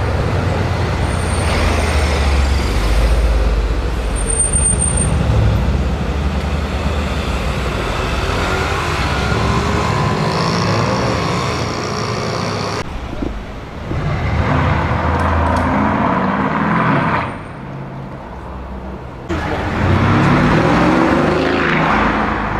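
Mercedes-AMG performance car engines running and revving in a string of short cut-together clips, with the engine note rising in pitch twice in the second half.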